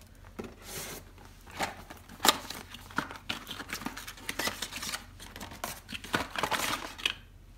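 Cardboard packaging being handled and lifted out of a box: irregular rustling and scraping of card against card, with light knocks and a sharp tap about two seconds in.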